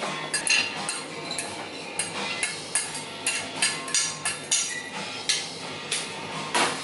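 Dishes, pans and cutlery clattering in a busy kitchen: a rapid, irregular run of knocks and clinks, some of them ringing briefly.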